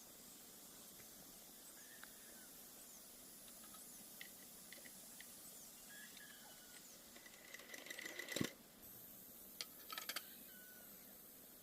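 Quiet background hiss with scattered light clicks and taps, a short run of rapid clicking about eight seconds in and another about ten seconds in.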